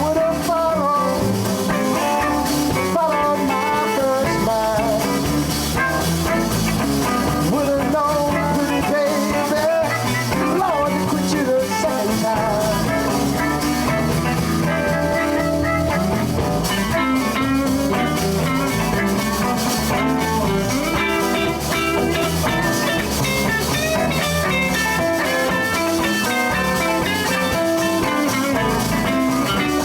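Live electric blues band playing an instrumental passage: drum kit, bass and guitars keep a steady groove while a lead line bends and slides in pitch over it.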